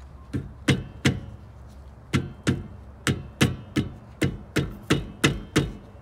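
Rubber mallet striking a trailer's hub-and-brake-drum on a Dexter 5,200 lb axle, knocking the hub loose to pull it off the spindle. About fourteen sharp knocks: three quick ones, a pause of about a second, then an even run of about three knocks a second.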